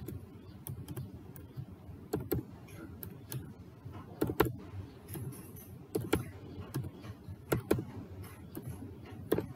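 Computer keyboard keystrokes: irregular light taps, with a sharper click every second or two.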